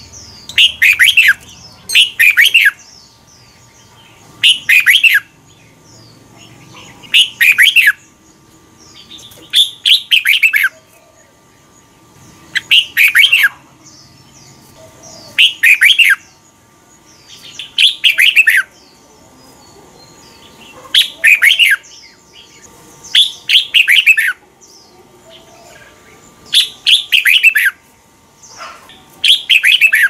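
Red-whiskered bulbul singing: short, loud phrases of quick whistled notes, about one every two to three seconds, with brief pauses between them.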